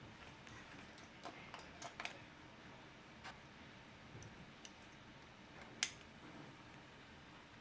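Faint scattered clicks and light rustles of flight gear being fastened: buckles and clips on a pilot's survival vest, over a low steady background. One sharper click stands out near the end.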